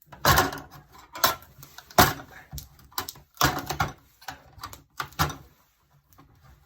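Thin sheet-metal test pieces bonded with adhesive being handled and pried apart: a series of about ten short, irregular knocks, scrapes and rattles of metal.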